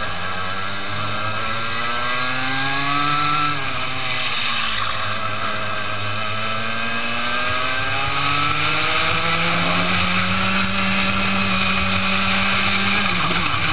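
Two-stroke racing kart engine at full race pace, heard on board: the revs climb for about three and a half seconds, drop sharply as the driver lifts for a corner, then climb again, hold high, and drop once more near the end.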